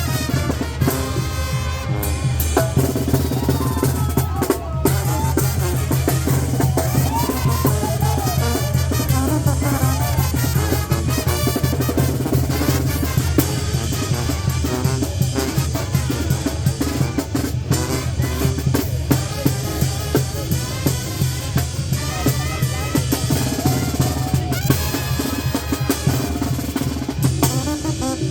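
Mexican banda music: snare and bass drum keep up a dense, steady beat over a held low bass, with horn melody lines weaving above.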